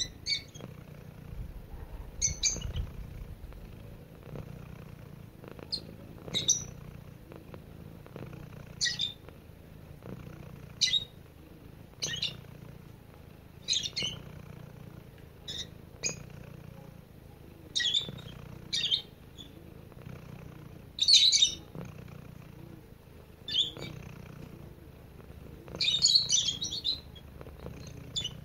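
A domestic cat purring steadily while being stroked, a low continuous purr. Short bird chirps break in over it every second or two and stand out as the loudest sounds, with a longer run of chirping near the end.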